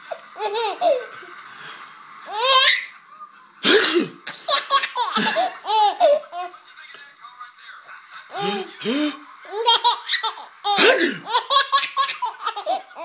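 An 8-month-old baby laughing hard in repeated peals, set off by sneezes, with a sharp louder burst a little under four seconds in.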